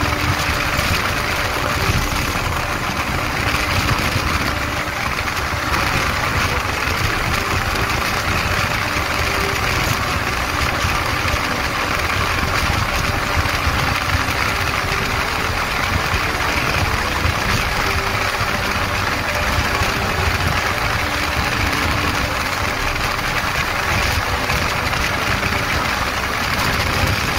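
Motorcycle engine running steadily at cruising speed, under a constant rush of wind and road noise with no sudden changes.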